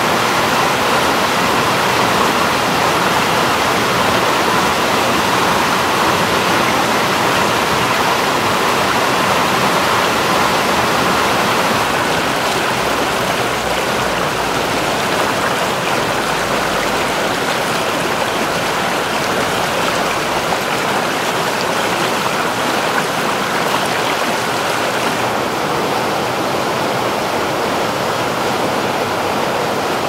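A fast river rushing and churning in white-water rapids over large rounded granite boulders: a steady, loud rush of water, slightly quieter after about twelve seconds.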